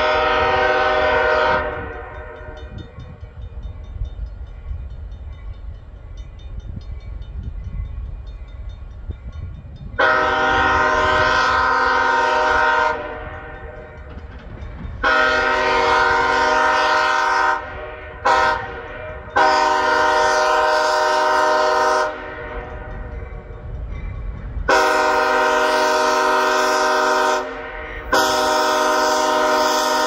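Multi-chime air horn of an approaching EMD diesel locomotive blowing the grade-crossing signal: a blast ends about two seconds in, then after a pause long, long, short, long, followed by two more long blasts near the end. A low rumble fills the gaps between blasts.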